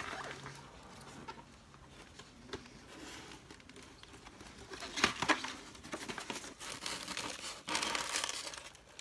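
Cardboard box flaps being opened and a styrofoam packing block pulled out: light handling at first, then rustling and scraping about five seconds in and again near the end.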